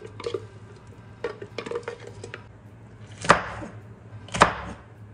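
Kitchen utensils clinking and clattering against dishes, then two sharp knocks about a second apart, each with a short ring.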